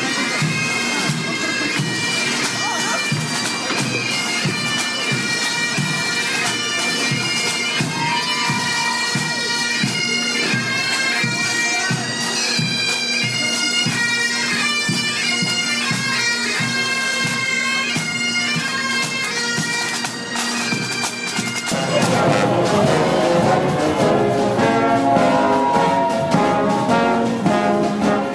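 Pipe band playing: bagpipe melody over a steady drone, with a regular drum beat. About 22 seconds in, a brass band takes over.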